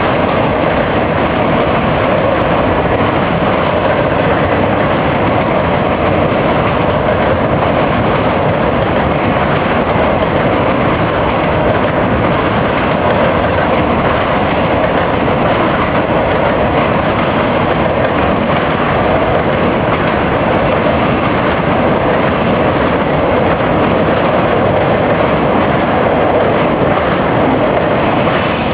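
Train rolling across a drawbridge, a loud, steady rumble of wheels on rails.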